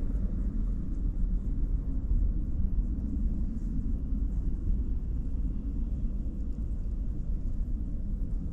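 Wind buffeting the microphone: a steady, uneven low rumble with little high sound.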